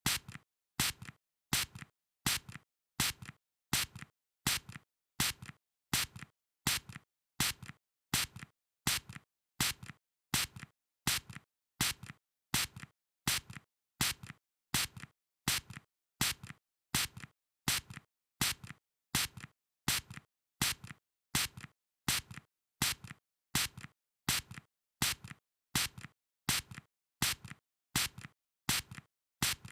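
Short spray bursts repeating at an even pace, about two a second, alternating a louder spray with a softer one, each cut off cleanly with silence between.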